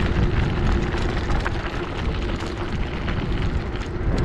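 Bicycle tyres crunching over a gravel road, with wind buffeting the microphone in a low rumble and a faint steady hum underneath.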